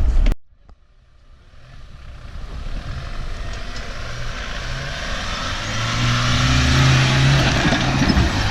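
An off-road 4x4's engine getting steadily louder over several seconds, revving under load. Before that, a loud sound cuts off abruptly just after the start.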